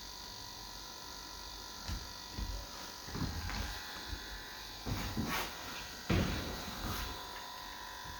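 A steady electrical buzz with a high whine runs throughout. Over it come scattered soft thumps and rustles, the sharpest a little past the middle.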